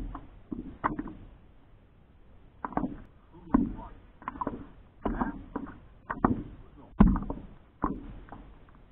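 Small waves lapping and slapping against a stand-up paddleboard in irregular splashes, about one every half second to a second.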